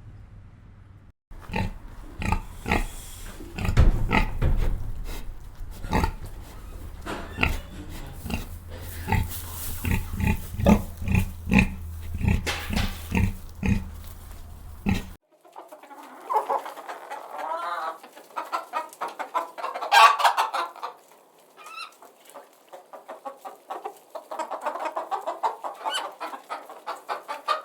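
Farm animals calling in two separate clips. First comes a long run of short, deep grunting calls, then after an abrupt cut a flock of chickens clucking and chattering in higher, warbling calls.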